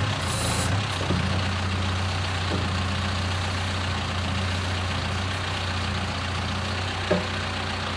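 John Deere backhoe's diesel engine idling steadily, with a short knock about seven seconds in.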